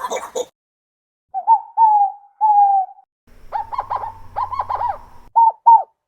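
Loon calls: three short whistled notes, each falling slightly, then a quick run of arched notes over a faint low hum, then a few more short notes. The groups are separated by brief silences.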